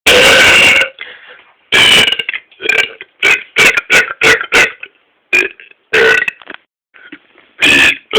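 A rapid string of loud human belches: one long belch at the start, then about ten short ones in quick runs, and another long one near the end. They are forced up from swallowed air, not from fizzy drinks.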